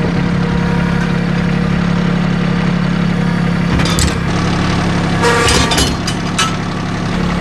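Compact diesel tractor engine idling steadily, with sharp metal clanks about four seconds in and again near five and a half seconds as the trailer coupler is latched onto the tractor's hitch.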